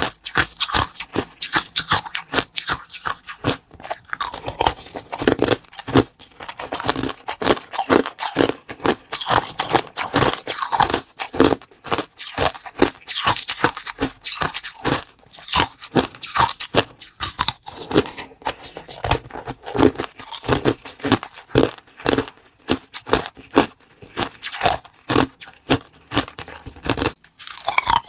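Close-up eating: bites and chewing of something crunchy, a dense run of sharp, irregular crunches several times a second.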